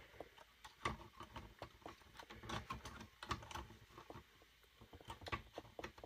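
Faint, irregular small clicks and rattles of metal parts as a Hermes 3000 typewriter carriage is wiggled into place on its mounting tabs.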